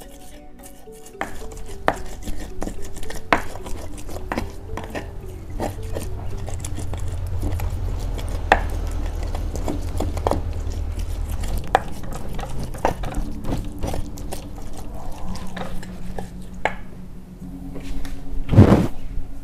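Stone pestle crushing and grinding chillies, shallots, garlic and tomato in a stone mortar (Indonesian cobek and ulekan) into a spice paste, with irregular knocks and scrapes of stone on stone. A louder thump comes near the end.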